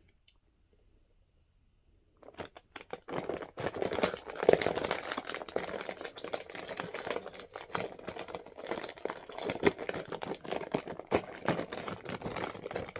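A Lay's chip bag being opened and handled: dense crinkling and crackling of the bag with some tearing, starting about two seconds in and going on to the end.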